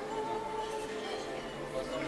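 Music, its melody holding one long note for about the first second and then moving on to lower notes.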